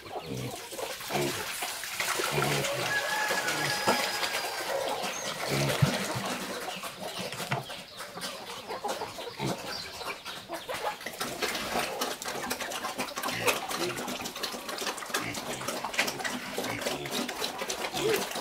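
Chickens clucking among other farmyard animal calls, likely the pigs in the pen, with scattered knocks and clatter as buckets of feed are tipped into a concrete pig pen.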